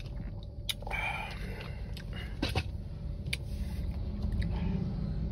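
A person eating, with faint chewing and a few light clicks over a low steady background hum.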